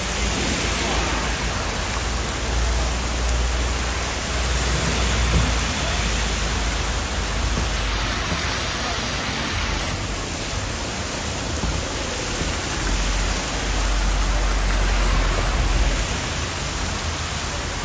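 Heavy downpour: a steady loud hiss of rain pouring onto a flooded street. Cars and a truck drive through the standing water, adding a low rumble that swells near the end.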